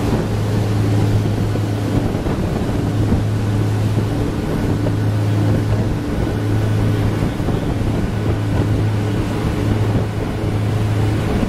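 Research vessel Agassiz's engine running steadily underway, a low even hum, over the rush of the churning wake and wind on the microphone.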